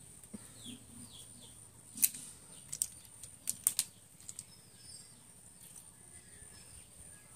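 Several sharp small clicks and taps, between about two and four and a half seconds in. Behind them are a few faint bird chirps and a steady high-pitched hiss.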